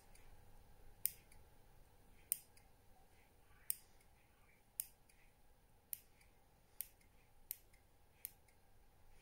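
Small scissors snipping along the edge of a freshly moulded soft plastic lure to trim off the excess, a sharp click with each of about eight cuts, roughly one a second and a little quicker near the end.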